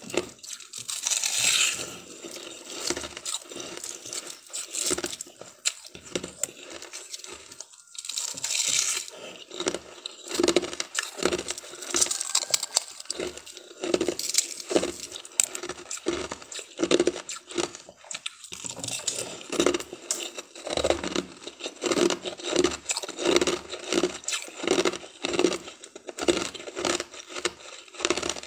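Frosty ice being bitten and crunched, with crisp crackling bites early on and steady rhythmic chewing strokes in the second half.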